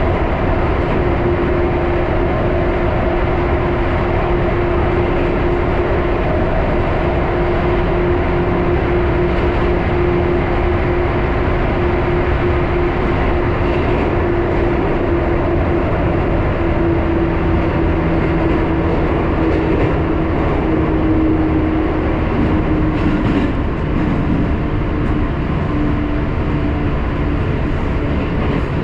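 Interior running noise of a JR 415-series electric train at speed in a tunnel: a steady, loud rumble of wheels and running gear. Over it runs a steady hum that slides slightly lower in pitch about three-quarters of the way through.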